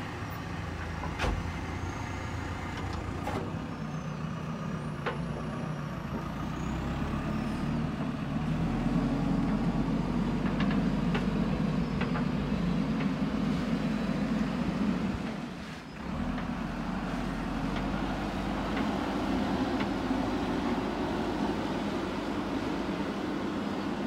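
Diesel engines of a JCB 3DX backhoe loader and a dump truck running steadily at idle-to-working speed, with a brief drop in level about two-thirds of the way through.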